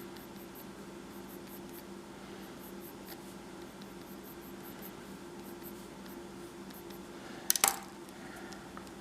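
Faint pencil scratching on paper over a steady low hum, with one sharp double click about seven and a half seconds in.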